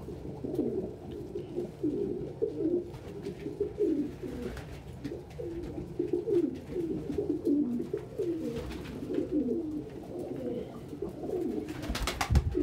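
Domestic pigeons cooing over and over, low overlapping coos from several birds. Near the end there is a short, sharp burst of noise.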